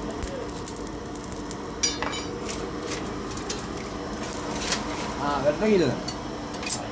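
Electric ventilator blowing air into a coal forge fire, a steady hum and rush of air. A few sharp metallic clinks sound over it, the loudest about two seconds in.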